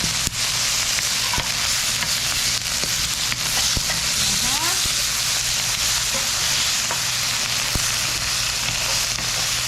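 Lomo saltado, beef with onions, peppers and tomatoes, sizzling steadily as it is stir-fried in a hot pan, with a few light taps of the utensil against it.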